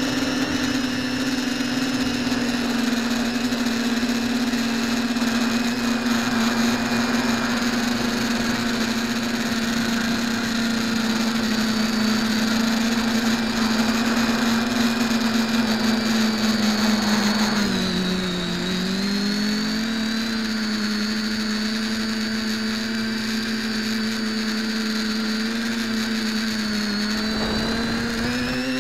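Quadcopter's brushless motors and propellers whining steadily in flight, heard through the onboard keychain camera. The pitch dips briefly about two-thirds of the way through, settles a little lower, and climbs again near the end.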